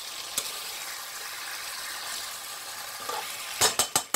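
Chicken masala with tomatoes and potatoes sizzling in a hot kadhai as it is stirred, a steady hiss. Near the end come several sharp metal clinks as the lid goes on, and the sizzle drops away.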